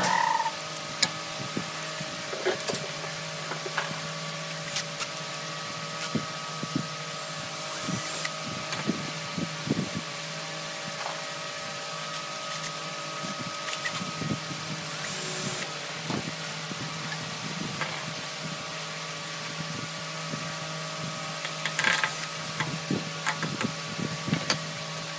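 A steady machine hum, with scattered light clicks and knocks as a small turned wooden disc is handled and fitted on the lathe bed.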